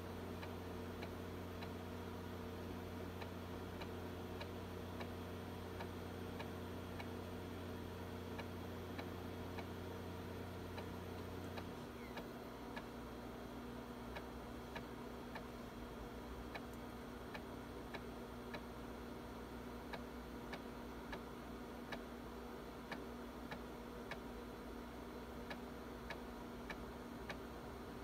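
Floppy drive reading a large file from a 1.44 MB disk: its head steps with a sharp tick about every two-thirds of a second, one track after another. A steady low hum under it stops suddenly about twelve seconds in.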